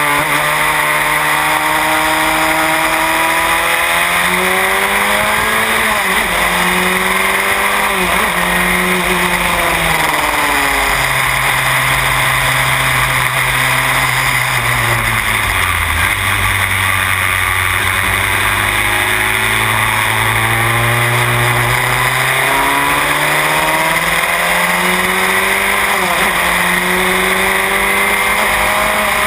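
Van Diemen Formula Renault single-seater's four-cylinder racing engine at full race pace, heard from the cockpit. Its pitch climbs through each gear and drops sharply at every upshift. In the middle the note falls away over several seconds into a low point about sixteen seconds in, then climbs again through the gears. Loud wind rush runs over the whole run.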